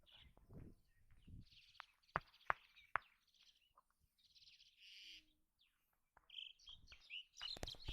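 Faint birds chirping in short scattered calls, with three sharp clicks about two to three seconds in.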